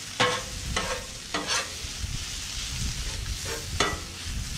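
Shredded hash browns sizzling in oil on a Blackstone flat-top griddle. A metal spatula scrapes and clicks against the steel plate several times, sharply, as it turns them.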